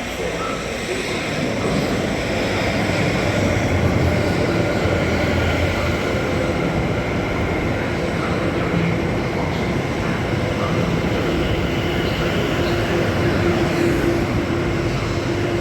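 South Western Railway electric multiple-unit train running past, a steady rumble of wheels on rail that builds over the first couple of seconds and then holds, with a faint steady tone growing stronger near the end.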